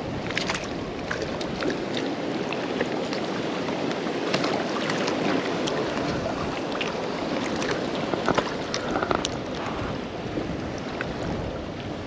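Wind buffeting the microphone over lake water lapping against a kayak, with scattered light clicks and knocks from handling.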